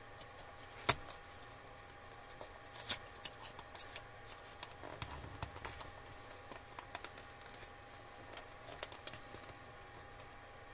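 A small paperboard product box being handled and pried open by hand: scattered light clicks and scrapes of the card flaps, the sharpest about a second in.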